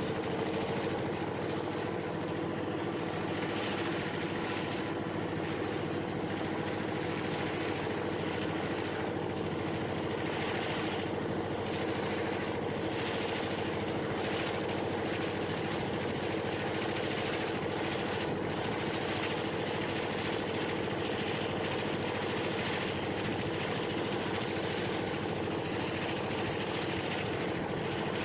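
EMD GP-series diesel-electric locomotive working as a helper, its diesel engine roaring steadily in throttle notch 8, full power. The drone holds an even pitch and level throughout, with an uneven hiss riding over it.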